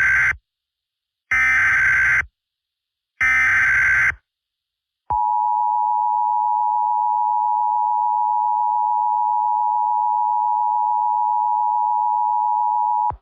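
Emergency Alert System tones: the end of one SAME header burst and then two more, each a harsh digital data screech about a second long with a second of silence between, followed by the steady attention tone held for about eight seconds before it cuts off.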